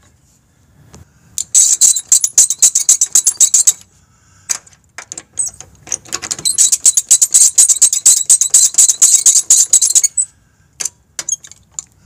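Lug wrench and socket working the lug nuts loose on a wheel, with fast metallic clicking and rattling. The clicking comes in two runs of a few seconds each, with a few single clicks near the end.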